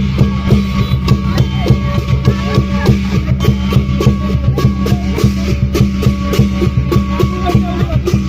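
Loud music with a steady drum beat and sharp cymbal-like hits over a sustained low drone.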